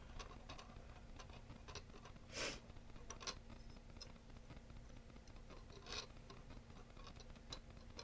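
Faint, scattered small clicks and scrapes of hands working jumper wires into an Arduino board's header pins, with two short soft rustles and a faint steady low hum underneath.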